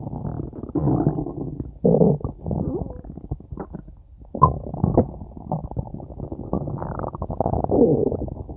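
Stomach growling: a string of low, gurgling rumbles, some with a wavering, sliding pitch, mixed with quick little pops.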